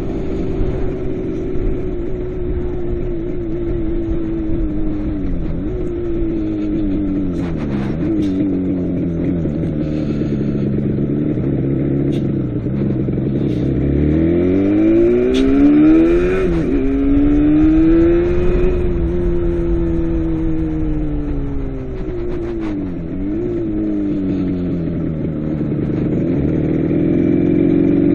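Motorcycle engine running under way, its pitch falling and rising again several times as the revs change, with a steep climb about halfway through.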